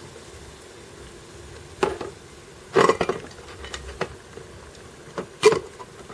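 Stainless steel vacuum-insulated tumblers clanking against the pot as they are lifted out of boiling water: a few sharp clunks and clinks over the steady hiss of the boiling water.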